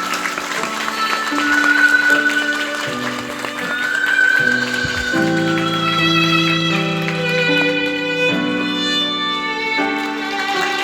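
Instrumental music: a violin-like string melody over sustained chords that change every second or two.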